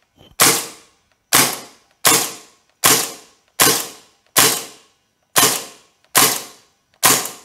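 NWell MP5K green-gas blowback gel blaster fired on semi-automatic: nine single shots, each a sharp crack with a short fading tail, a little under a second apart.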